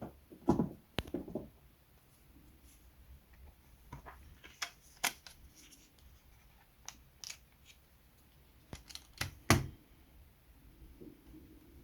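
Small scissors handled and snipping thin rigging line, heard as scattered sharp clicks with a few louder snaps, the loudest near the end.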